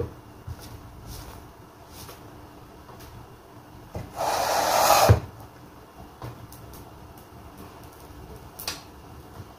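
Clatter of handling an electric dough press: a sharp clack as its hinged metal lid is opened, light clicks and taps as dough is moved about, and, about four seconds in, a second-long scraping rustle that ends in a low knock.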